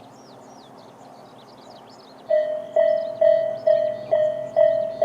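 Tobu Railway level-crossing alarm ('Tobu sound A') switching on about two seconds in: an electronic ding repeated a little over twice a second, the warning that a train is approaching.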